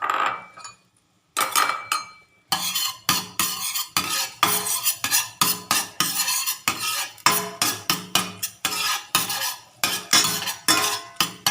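A utensil stirring and scraping in a pan of melted butter and chopped garlic: quick repeated strokes clinking against the pan, about three a second, starting about a second and a half in.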